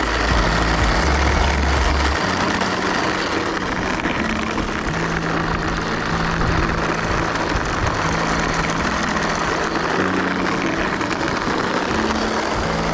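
Remote-control toy container truck driving on asphalt: a steady mechanical running noise, with a low hum underneath that shifts in pitch every second or two.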